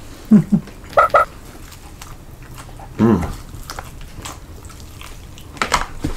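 Fried chicken and waffles being eaten at the table: a short two-beat laugh and low 'mm' murmurs, then a few sharp clicks and crunches of biting and cutlery near the end.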